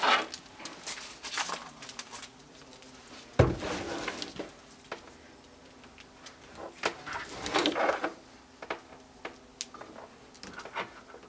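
A plastic-wrapped coil of CCTV camera cable being handled: crinkling and rustling, with a single heavy thump about three seconds in as the coil is set down. Later come small clicks and clinks as the cable's plug connectors are handled.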